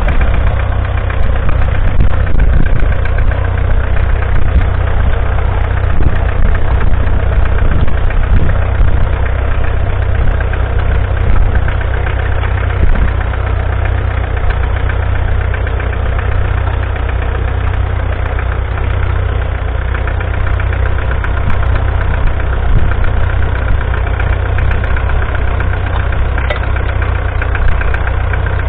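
1958 McCormick International B275's 2.3-litre four-cylinder diesel engine running steadily.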